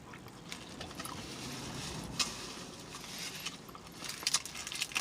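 Scattered light clicks and clinks as a cream soda bottle is handled, one clearer click near the middle and a quick run of them near the end.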